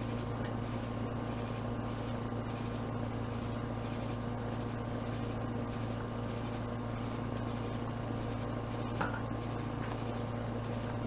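A steady low mechanical hum with a constant background hiss, and a faint click about nine seconds in.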